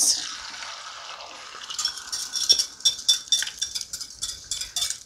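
Beaten eggs poured into a saucepan of hot browned butter give a hiss that fades over the first second or two. Then a wire whisk scrapes and taps against a glass bowl as the last of the eggs is scraped out, making several ringing clinks a second.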